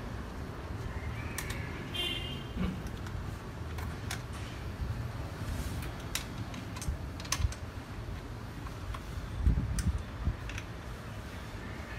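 Irregular small metallic clicks and taps of a hex key working on bolts as they are tightened, with a couple of duller knocks near the end.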